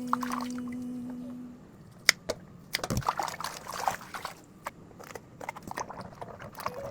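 A steady hum stops about a second and a half in. Then water splashes and trickles, with sharp clicks and a low knock, as vegetables are handled and rinsed.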